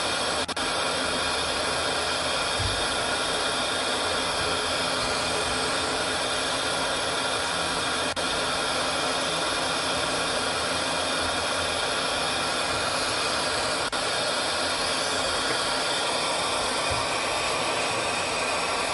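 Oxygen-and-gas glassworking torch running with a steady, even hiss, its flame turned up high.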